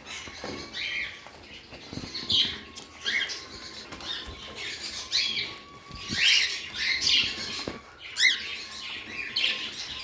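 Caged budgerigars chirping and squawking, many short sharp calls overlapping one after another.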